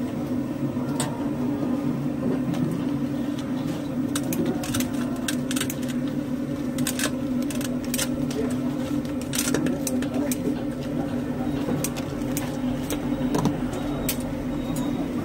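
Scissors snipping through fried bhajias and the clink of steel trays and plates: scattered sharp clicks over a steady low hum.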